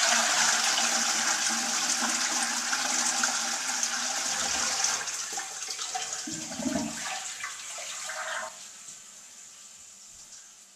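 Toilet flushing: a loud rush of water that starts at once, turns to a gurgle about six to eight seconds in, then drops to a fainter hiss as the cistern refills.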